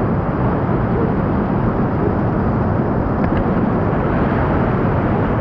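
Loud, steady rush of whitewater running through a river rapid.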